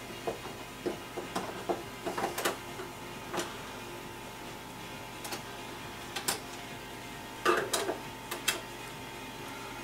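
Scattered small clicks and taps of a screwdriver and loose screws against the metal bottom plate of a CDJ-800 MK2 as it is being taken apart, with a cluster of louder knocks about seven and a half seconds in. A faint steady hum runs underneath.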